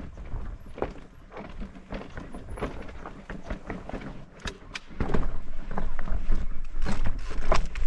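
Mountain bike clattering over a rough mountain track: irregular knocks and rattles, with a low rumble that grows louder about five seconds in.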